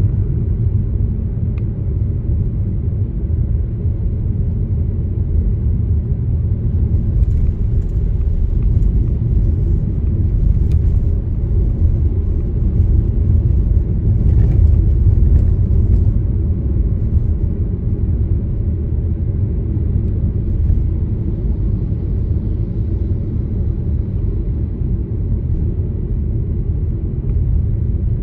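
Car driving along a road: a steady low rumble of road and engine noise, with a few faint ticks about halfway through.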